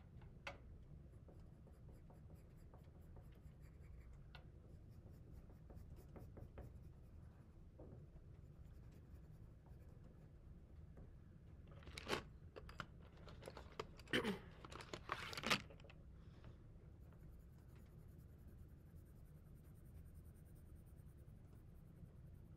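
Faint scratching of a marker colouring on paper, with a short run of louder scratchy strokes in the middle.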